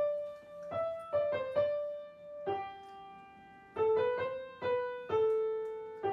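Piano playing a hymn introduction: a slow melody of single notes and chords, each struck note ringing and fading, ahead of the congregation's singing.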